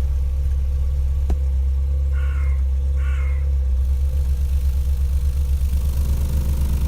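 Subwoofer with a neodymium motor, driven hard by an amplifier, reproducing a very low test tone as a loud, deep, steady hum. About four seconds in, the hum takes on a fast pulsing.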